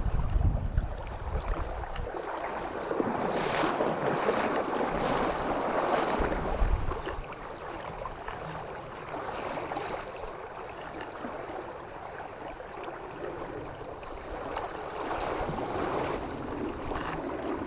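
Running river water with wind gusting on the microphone, the wind rumble strongest in the first couple of seconds and again about six seconds in.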